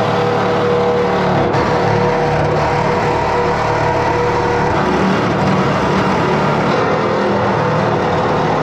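Reciprocating saw cutting through the corrugated steel wall of a shipping container, running continuously and loudly, near the end of the cut for a door opening.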